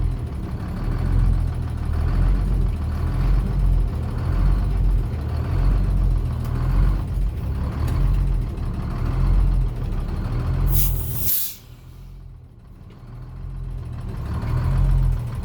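Detroit Diesel 6-71 two-stroke diesel of an International Harvester truck running with a steady pulsing rumble. About eleven seconds in comes a short hiss of released air from the air brakes, then the engine goes quieter for a couple of seconds before building back up.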